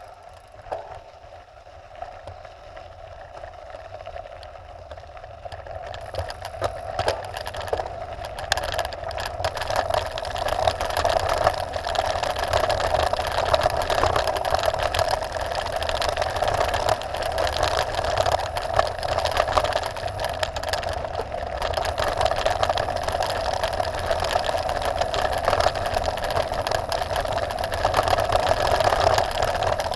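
Mountain bike descending a gravel track: the rear freehub buzzes steadily while the bike coasts, over tyre rumble on the loose gravel, with scattered ticks of stones and rattles. The buzz grows louder over the first ten seconds, then holds.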